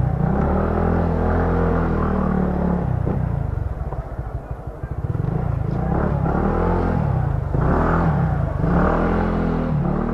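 Motorcycle engine running under way, its pitch rising and falling several times as the rider speeds up and eases off, with a softer dip about four to five seconds in, picked up by a helmet-mounted lavalier microphone.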